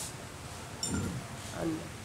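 A short metallic clink of tools or parts, just before a second in, and a brief low murmur of a man's voice.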